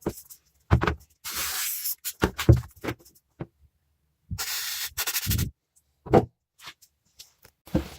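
Work on a rusty small metal vise: several short knocks and clunks of metal parts, with two steady hissing bursts of a bit under a second each, about one second in and again about four and a half seconds in.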